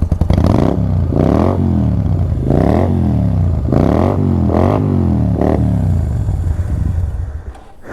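Yamaha Virago 250's V-twin engine revved in about five quick throttle blips, each rising and falling in pitch, then settling back to idle. The engine sound drops away shortly before the end.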